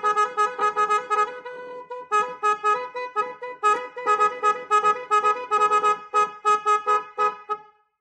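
Koizer electric musical car horns, a high and a low trumpet horn driven by their melody tuner box, playing one of their 18 selectable tunes as a fast run of short, bright, repeated horn notes. The tune breaks briefly a little over a second in, then runs on and cuts off shortly before the end.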